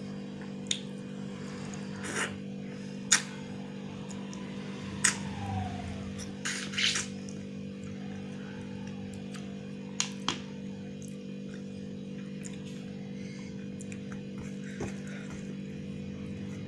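Eating sounds of a man eating rice by hand: a handful of short sharp smacks and clicks from chewing and from fingers on a steel plate, over a steady low hum.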